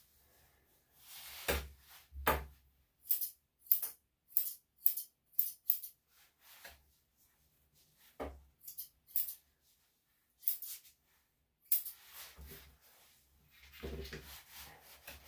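Grooming scissors snipping through a small dog's coat: quick, high, metallic snips coming in runs of about two a second, with a few duller knocks from handling in between.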